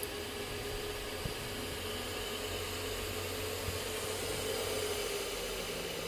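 Combi boiler running under test with its fan blowing steadily, a hum in the noise, and a couple of faint clicks.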